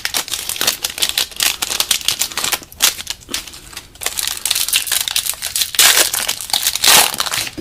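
Foil trading-card pack wrapper crinkling and tearing as it is handled and opened, a dense run of irregular crackles that is loudest near the end.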